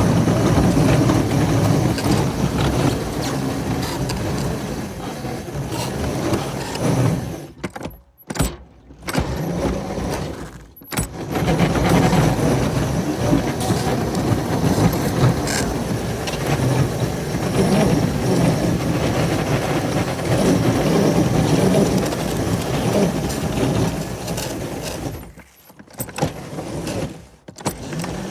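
Small railroad locomotive running under load with a metallic rattle, pushing through deep snow. The sound drops out abruptly a few times.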